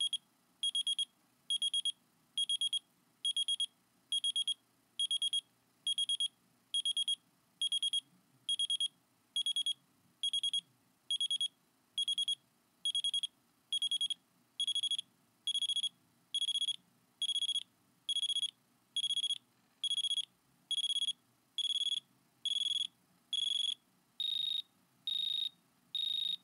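Avalanche beacon (transceiver) beeping steadily in search mode, short high beeps about one and a bit per second; the pitch steps up slightly near the end.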